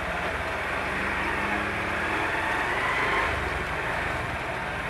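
Steady engine and road noise from a moving vehicle in traffic, with no siren standing out.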